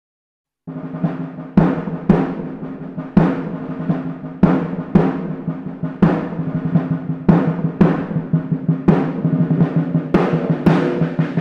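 Background music: low sustained notes under regular drum hits, about one every three-quarters of a second, starting after a brief silence.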